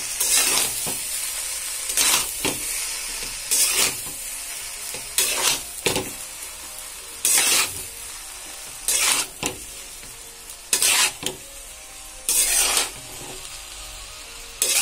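A spatula stirring and scraping cooked rice and grated coconut around a frying pan, in short strokes about every one and a half to two seconds, over a steady hiss.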